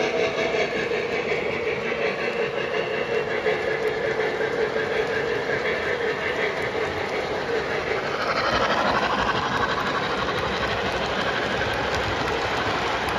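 O gauge model passenger cars rolling on three-rail track, their wheels rattling and clicking over the rail joints. About eight seconds in, the rattle turns brighter and a little louder.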